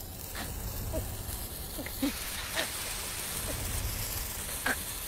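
Steady hissing ambience over a low rumble, with a few brief, faint short sounds scattered through it.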